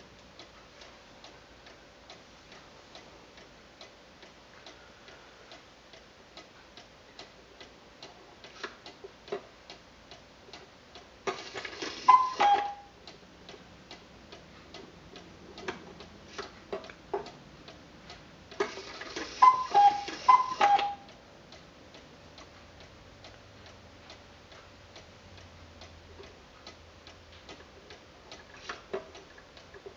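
Vintage cuckoo clock ticking steadily. Its two-note cuckoo call from the freshly repaired bellows sounds once about 12 seconds in and twice about 19 to 20 seconds in, each with the whirr of the striking mechanism, as the hands are turned forward by hand.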